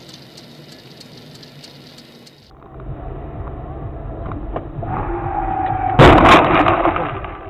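A car collision recorded by a dashcam inside a car: faint hiss with light clicks at first, then road and engine noise building for a few seconds, then a loud sudden crash about six seconds in as another car strikes, fading over about a second.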